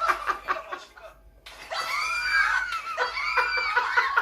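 Hearty laughter in quick rhythmic bursts, breaking off for a moment about a second in, then high-pitched shrieking laughter whose pitch rises and falls.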